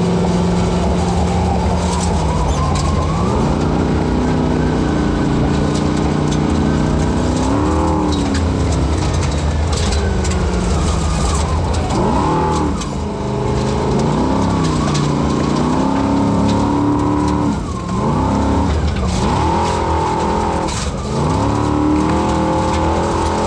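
Unlimited-class Formula Offroad hill-climb car's engine, heard from inside the cockpit, revving up and dropping back about six times as the car climbs a loose gravel slope, with scattered knocks.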